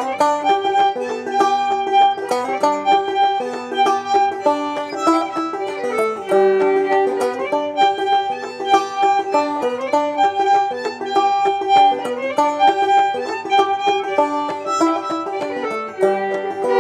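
Clawhammer banjo and fiddle playing an old-time fiddle tune together, a steady rhythmic melody.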